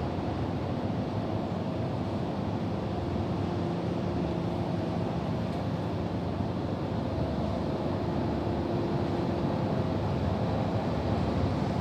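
Steady roar of storm wind, with a few faint tones that come and go.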